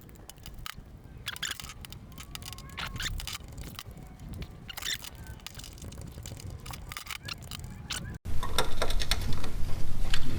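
Scattered light metallic clicks and taps of hand tools working on a motorcycle's engine mount bolts as they are loosened. About eight seconds in, the sound cuts and grows louder, with a steady low hum under further clicks.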